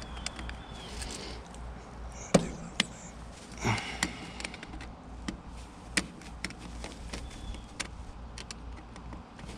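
Scattered sharp clicks and knocks of hand tools and metal parts being handled, with a short scrape, over a steady low rumble. The loudest click comes about two and a half seconds in.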